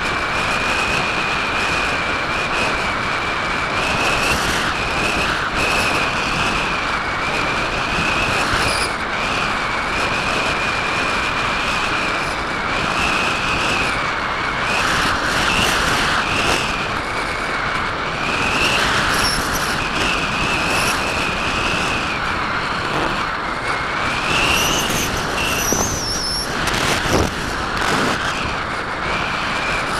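Steady rush of airflow over the onboard camera of a Parkzone Radian RC glider in flight, with a thin high whine that wavers up and down in pitch throughout.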